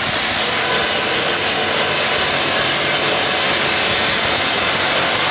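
Hydraulic drill jumbo drilling into the rock face of a tunnel: a loud, steady machine noise with a strong hiss that does not change.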